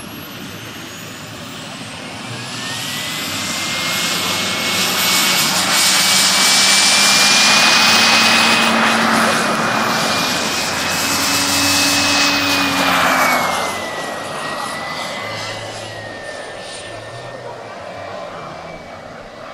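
Turboprop turbine engine of an RC scale Embraer T-27 Tucano model flying past: a steady high whine over a rushing sound that swells over several seconds, peaks, and fades away, its pitch dropping as it goes by.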